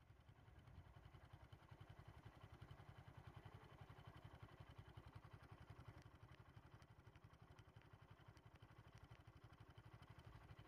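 Faint vehicle engine idling, a steady fast low pulsing.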